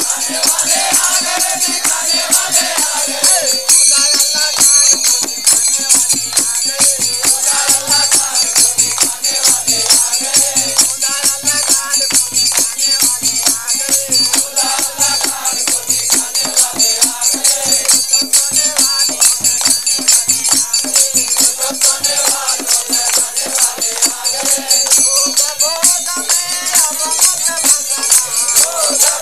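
A Hindi devotional bhajan sung by a man's voice, with the seated group singing along, over a fast, steady jingling rhythm from hand percussion. Soft low drum beats keep time through the middle stretch.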